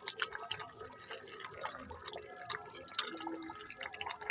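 Thick chicken curry bubbling in an aluminium kadai, simmering in the juices the meat has released with no water added, with many small irregular wet pops.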